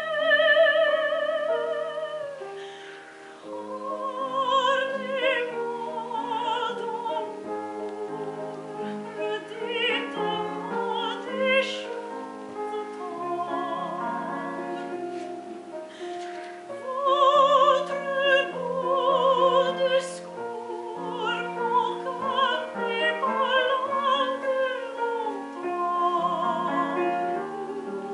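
A soprano singing a classical song with strong vibrato over piano accompaniment. She holds a long high note at the start, then sings on in shorter phrases.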